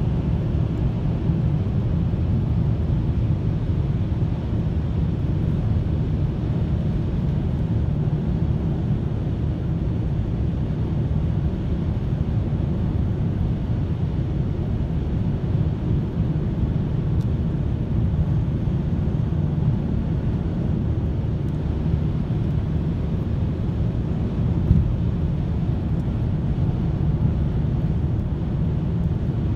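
Steady low rumble of tyres and engine heard inside a car's cabin while cruising at highway speed, with one brief knock about 25 seconds in.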